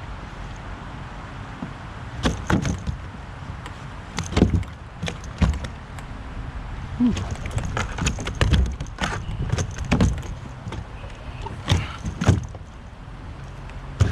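Irregular knocks, thumps and rattles of gear and handling against a kayak, over a steady low background.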